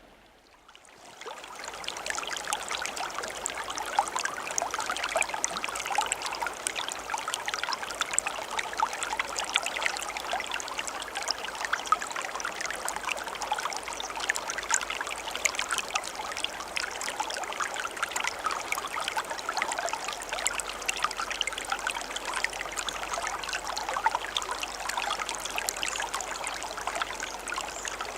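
Running stream water babbling and trickling steadily, fading in over the first couple of seconds.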